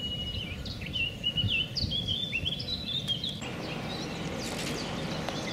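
A short electronic jingle of stepping chime-like tones, a subscribe-reminder sound effect, that cuts off about three and a half seconds in. Small birds chirp over a steady outdoor hiss.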